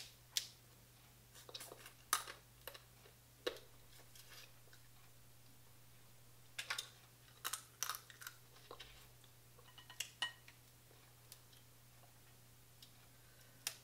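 Boiled crab legs being snapped and cracked apart by hand and eaten: a scattered series of sharp cracks and clicks, with quiet chewing between them.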